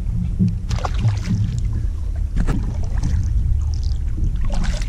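Kayak being paddled: a few splashes of the paddle in the water over a steady low wind rumble on the microphone.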